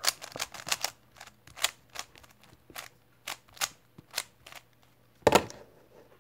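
Rubik's cube being turned quickly by hand, its plastic layers clacking in an irregular run of sharp clicks, several a second. About five seconds in comes one louder, heavier knock.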